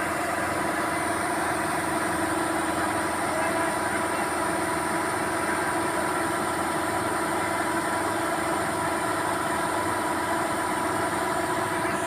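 Paddy combine harvester running with a steady hum while its unloading auger pours threshed grain out of the spout.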